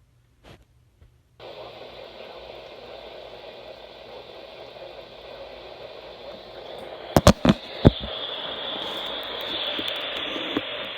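Radio static from a receiver tuned to a broadcast alert feed: a steady hiss that starts about a second and a half in, with a few sharp clicks about seven seconds in and a faint high tone underneath after them.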